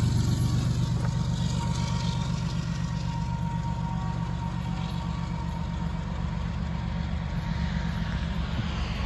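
Freight train with GE ES44AC diesel-electric locomotives moving away. A steady low rumble from the engines and rolling cars slowly fades over the first few seconds, then holds steady.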